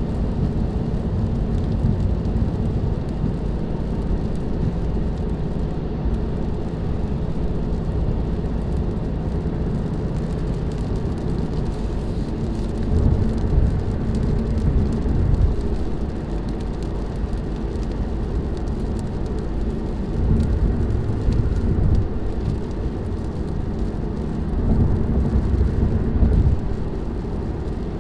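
Interior of a 2018 Ford Mustang GT at highway speed on a wet road: a steady low road and engine drone with tyre hiss, swelling louder a few times about halfway through and again near the end.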